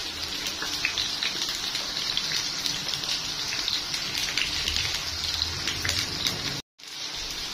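Hot oil sizzling and crackling in a frying pan, a steady hiss with many small pops. It cuts out for a moment near the end, then goes on.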